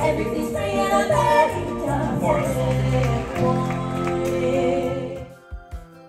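Stage-show music with singing over a steady bass line, heard from the audience in a large theatre; a little over five seconds in it cuts off and gives way to quieter, lighter background music.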